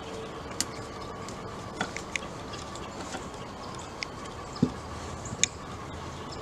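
A few scattered light clicks and knocks of metal hardware as nylon hex nuts are threaded onto and tightened on the bolts of a tree stand's cable block, the loudest knock about two-thirds of the way through, over a faint steady hum.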